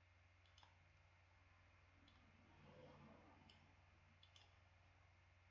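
Near silence: room tone with a few faint computer mouse clicks, one about half a second in and a few more later on.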